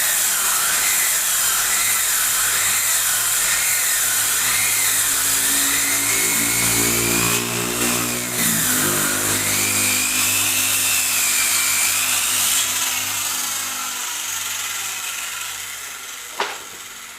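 Circular saw ripping a wooden board lengthwise, its blade whine wavering up and down as it cuts. About two-thirds of the way through, the sound dies down gradually as the saw winds down, and a single sharp knock comes near the end.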